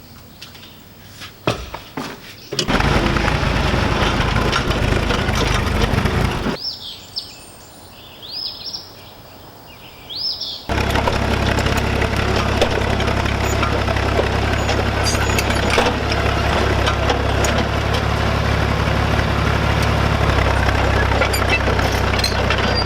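An engine runs loudly and steadily, broken off abruptly for a few seconds in the middle where birds chirp; it starts again suddenly and runs on to the end.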